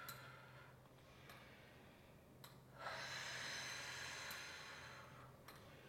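A woman's long exhale, starting about three seconds in and lasting about two and a half seconds, breathed out on the effort of a press against the reformer's spring. There is a fainter, shorter breath right at the start.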